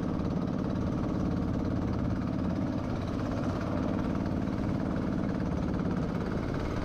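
Engine of a small outrigger fishing boat running steadily under way, holding one even pitch with no change in speed.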